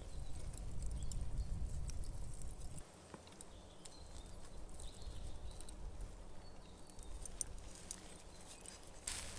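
Faint crackling and ticking from a bed of charcoal embers under spit-roasting trout, with a low rumble over the first three seconds that cuts off suddenly. A louder burst of crackling comes near the end.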